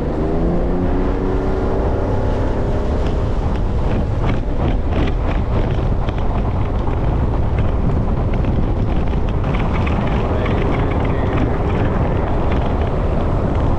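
Boat under way, its motor running steadily, the motor's pitch rising during the first couple of seconds, with heavy wind buffeting the microphone.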